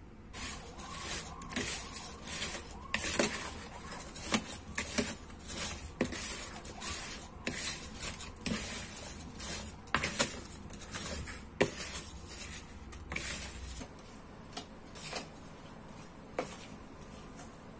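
Wooden spatula stirring sliced strawberries and sugar in a bowl: irregular wet scrapes and knocks against the bowl. About fourteen seconds in it thins out to a few separate taps.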